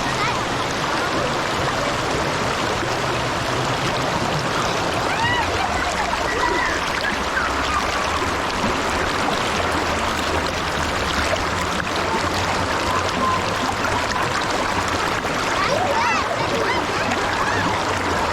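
Spring water running in a stream: a steady rush with small gurgles.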